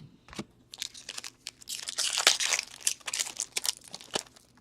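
Foil wrapper of a hockey card pack crinkling and tearing open, with crackling that is densest in the middle and some sharp clicks from the cards being handled.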